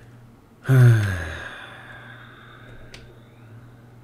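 A man's loud sigh starting under a second in: a breathy, voiced exhale falling in pitch and fading over about a second.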